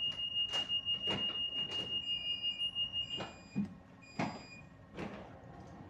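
Ship's bridge engine-order telegraph alarm sounding a steady high beep for about three seconds and then stopping, with several sharp clicks, signalling a slow-ahead engine order.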